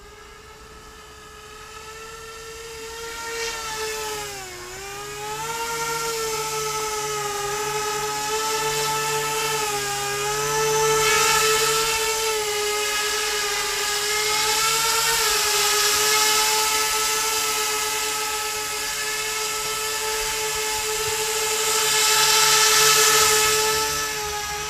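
Electric motors and twin ringed rotors of a Z-2 bi-copter RC aircraft flying close by: a steady high whine. It grows louder over the first few seconds and dips briefly in pitch about four and a half seconds in. It then rises and falls in loudness as the aircraft moves near and away.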